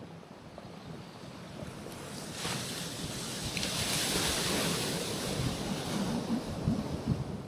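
Small Caribbean waves breaking and washing over a rocky shoreline. The surf hiss swells about two and a half seconds in, is loudest around the middle, then eases off.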